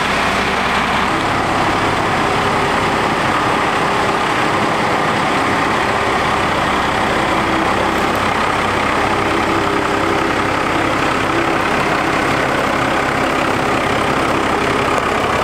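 12-valve Cummins 5.9 L inline-six diesel in a second-generation Dodge Ram running steadily at idle, just started, as the truck rolls slowly out of the garage.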